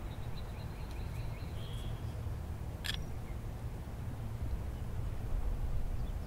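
A single sharp click about three seconds in as a sea lion's canine tooth is pressed into its socket in the jawbone, bone on bone. A steady low rumble runs underneath.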